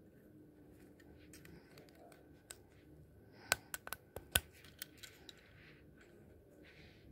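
LEGO Technic plastic pieces clicking as they are pressed and snapped together by hand: a quick run of about half a dozen sharp clicks around three and a half to four and a half seconds in, with a few lighter clicks before and after.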